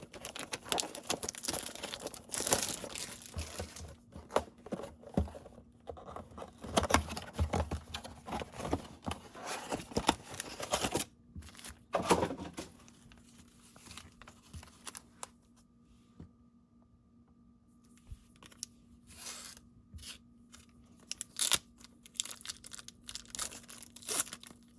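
Bowman Platinum baseball card packs being torn open, with foil wrappers crinkling and cards rustling. The handling is busy for roughly the first dozen seconds, then thins to occasional soft rustles and clicks.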